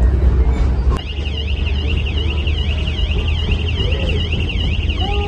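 An electronic alarm starts about a second in: a high warbling tone that sweeps rapidly up and down several times a second. It sounds over the steady low rumble of the moving train.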